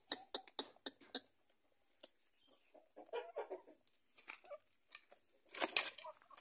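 A Pama chicken pecking feed pellets: a quick run of sharp taps in the first second, soft clucking in the middle, and a louder scuffing noise near the end.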